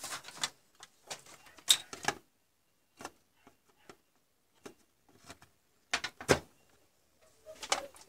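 Irregular light clicks and knocks, some in quick clusters, the loudest about two seconds and six seconds in: handling noise.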